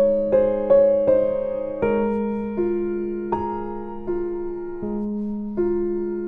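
Background piano music: slow, unhurried single notes, each fading after it is struck, over a held low note.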